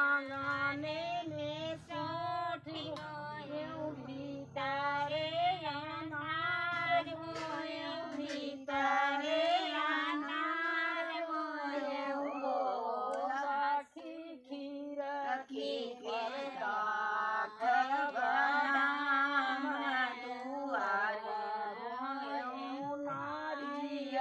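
Women's voices singing a sohar, a village folk song sung for a child's birth, without instruments. The melody runs in long sung phrases, with a short break about halfway.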